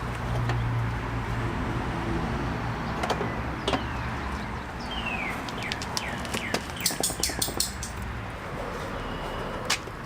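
A bird calling a quick run of short falling chirps about halfway through, over scattered clicks and light taps of hand work on the motorcycle.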